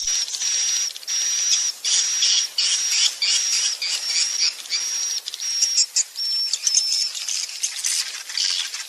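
Swiftlet calls from a roosting-lure recording: about a dozen short, high, level notes about half a second apart over a dense hissing twitter, giving way to rapid chirping near the end.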